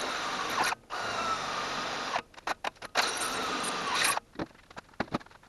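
Power drill boring holes in steel tubing in three runs of about a second each, its motor whine dropping each time the trigger is let go. Light clicks and taps follow near the end.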